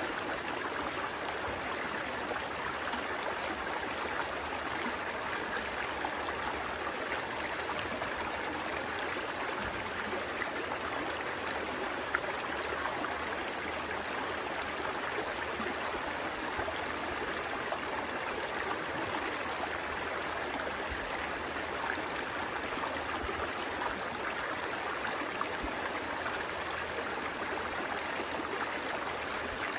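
Running water flowing steadily, a continuous even rush.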